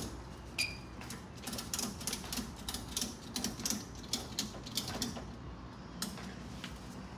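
Ratchet strap being tightened: a run of sharp ratchet clicks, several a second, with short pauses between strokes.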